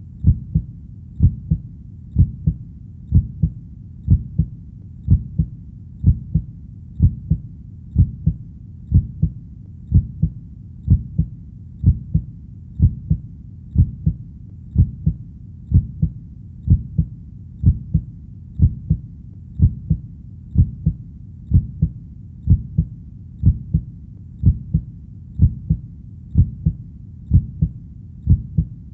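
Heartbeat: steady, even double thumps (lub-dub), about one beat a second, deep and low-pitched, over a faint steady low rumble.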